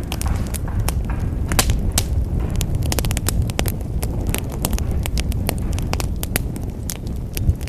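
Wood fire crackling in a fireplace: frequent sharp pops and snaps over a steady low rumble.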